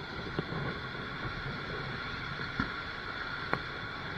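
Steady outdoor background rush, with a few light clicks and one soft, short thump about two and a half seconds in.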